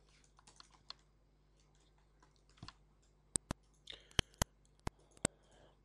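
Computer keyboard and mouse clicks: a few soft ticks in the first second, then about six sharp, separate clicks in the second half.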